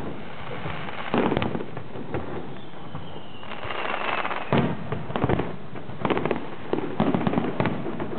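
Aerial fireworks shells bursting in a rapid series of booms and crackles. A thin whistle falls slowly in pitch about three seconds in, and the densest volley of bursts comes near the end.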